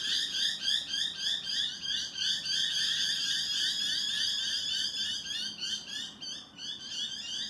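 An animal calling with a rapid, steady run of high chirps, several a second.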